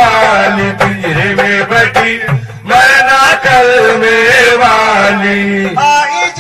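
Devotional Sufi kalam being sung: a voice holding long, ornamented notes over a steady sustained accompaniment and percussive beats.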